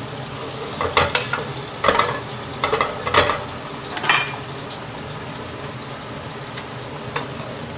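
Diced salted fish frying in oil in a pot, a steady sizzle. During the first four seconds or so a metal ladle stirs it, clattering against the pot about five times. After that the sizzle goes on alone.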